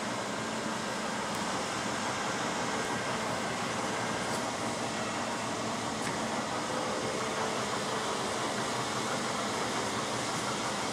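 Titan SC 2000 vertical lathe (vertical boring mill) running, a steady even hum of its motors and drive, with a few faint clicks as its panel controls are worked.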